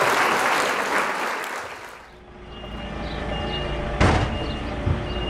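A loud rushing noise fades out over the first two seconds, then a DAF XF truck's diesel engine runs with a low drone while a reversing alarm beeps about once every 0.8 s. A sharp knock sounds about four seconds in, the loudest moment.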